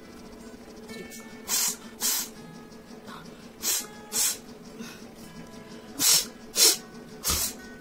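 A person sniffing hard through the nose in quick pairs: three pairs of sharp, breathy bursts about half a second apart, then one more near the end. The sniffing is an attempt to bring on a sneeze.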